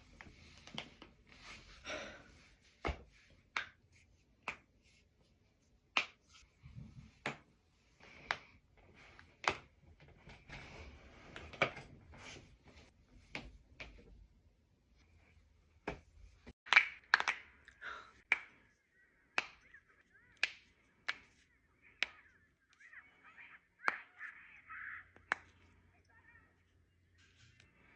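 Joints cracking during chiropractic adjustments: a long, irregular series of sharp pops, some single and some in quick clusters, with the loudest run of cracks a little past halfway and soft rustling between some of them.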